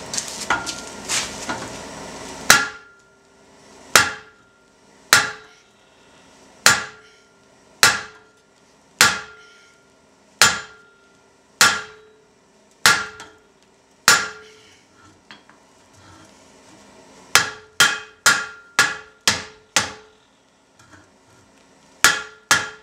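Hammer blows on a glowing hot hook held over the horn of an anvil, bending it, with the anvil ringing after each blow. About a dozen slow, even strikes roughly a second apart, a short pause, then a quick run of seven lighter blows and two more near the end.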